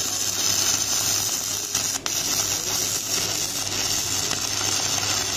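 Stick (MMA) welding arc from a Victor MMA-200 DC inverter welder, an electrode burning on a steel bar: steady crackling spatter, with a brief break about two seconds in.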